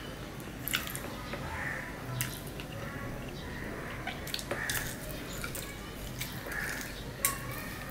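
Fingers mixing rice on a stainless steel plate, with a few sharp clicks as they hit the metal, and the soft mouth sounds of a person chewing.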